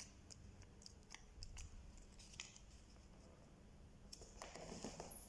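Faint rustling and small scattered clicks of craft paper being handled and pressed down as it is glued; otherwise near silence.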